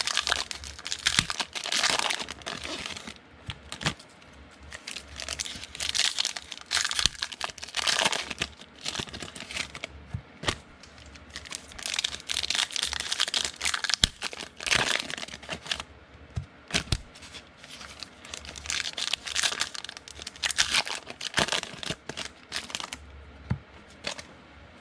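Foil wrappers of football trading card packs being torn open and crinkled by hand, in repeated irregular bursts with scattered small clicks.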